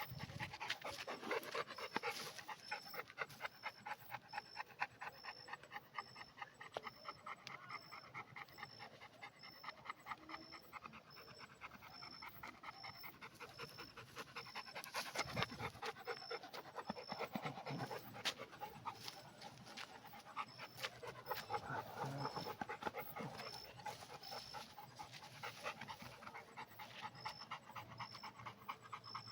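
A pit bull panting in quick, rhythmic breaths, several a second, carrying on steadily with louder stretches.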